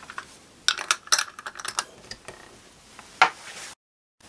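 A small glass jar, its screw lid and a plastic syringe being handled and set down on a wooden bench: a quick run of light clinks and taps, then one sharper click. The sound cuts out briefly near the end.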